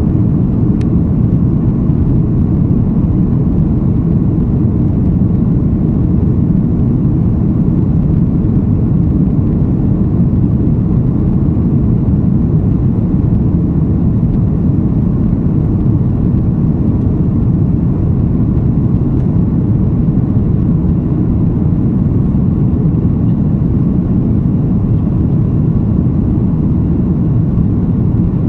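Steady cabin noise of an Airbus A330-243 climbing after takeoff: the roar of its Rolls-Royce Trent 700 engines and the rush of air, heard inside the cabin from a seat behind the wing. A deep, even rumble that holds unchanged.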